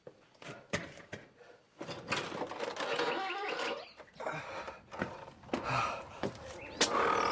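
Sound-effect footsteps and knocks, with birds chirping from about two seconds in.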